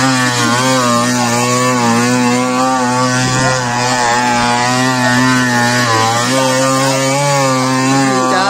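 Small engine of a model fishing boat running, its pitch wavering slightly up and down, with a steady hiss.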